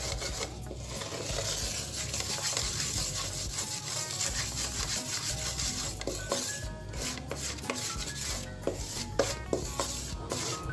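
A spoon scraping and stirring thick melted jaggery around a metal pan in continuous strokes, as the syrup is cooked down toward the hard-crack stage for chikki.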